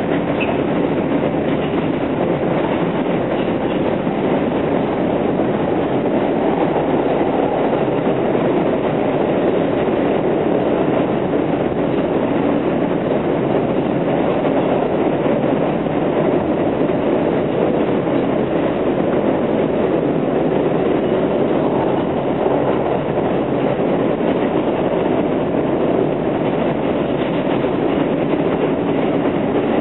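R160B Siemens subway train running steadily at speed on elevated track, heard from inside the car: a continuous rumble of wheels on rails and running gear.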